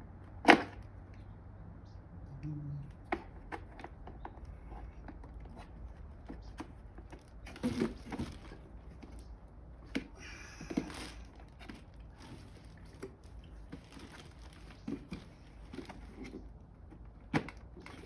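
Hard plastic parts being handled and pressed together by hand: scattered clicks and knocks with some rustling, the sharpest knock about half a second in, as a cord holder is fitted onto the back of a plastic pressure washer housing.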